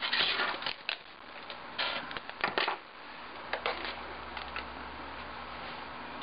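Hands working tape onto a glass display box: a few short rustles and light taps in the first three seconds, then quieter, with a faint low hum coming in about three seconds in.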